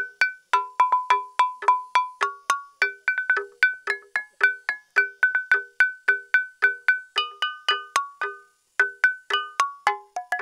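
Xê Đăng stone lithophone (đàn đá) of stream stones being struck, playing a quick melody of short ringing notes, about three or four a second, with a brief pause about eight seconds in.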